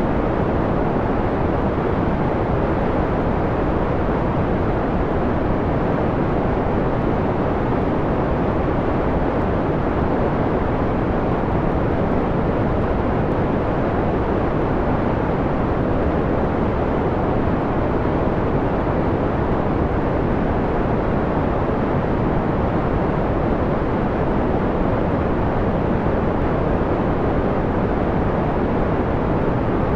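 Steady synthetic white noise filtered down to a dark, mellow hiss with little treble, even and unchanging throughout.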